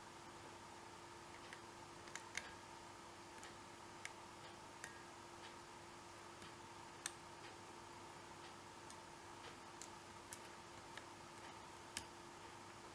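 Faint, irregular clicks of a lock pick lifting the steel pins of an American Series 790 padlock under light tension, about fifteen scattered ticks, over a low steady hum.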